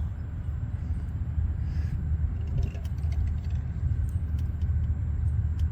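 Steady low rumble of background noise, with a few faint short clicks.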